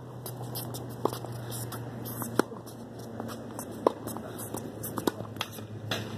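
Tennis rally on a hard court: sharp pops of the ball being struck by rackets and bouncing, about a second or so apart, over a steady low hum.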